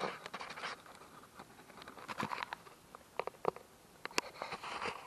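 Scattered light clicks, taps and scraping rustles, loudest near the start and again about four seconds in: hands working on a motorcycle as it is tilted further to drain the last of its engine oil.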